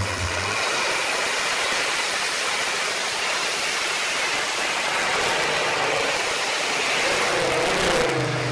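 Competition pulling tractor running flat out under load as it drags the weight sled down the track, a loud steady rushing engine noise. It thins out near the end.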